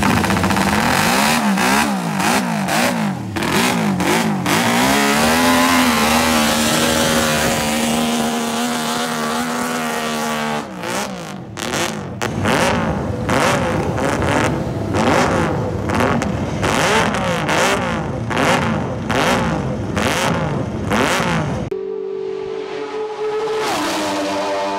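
Vintage MV Agusta 500 three-cylinder race engine being revved hard through open exhausts. It is blipped up and down, then held at high revs, then given quick repeated throttle blips about twice a second. Near the end it settles to a steady note that drops in pitch.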